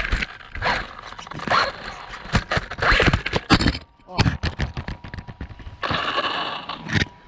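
RC buggy's tyres and plastic body scraping and knocking against stone as it climbs a wall and tips onto its roof: a busy run of knocks and scrapes, with a brief lull about four seconds in.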